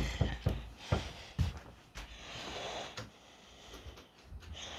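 A person walking back indoors: a few soft knocking footsteps and handling thumps in the first second or so, then a soft rustling noise.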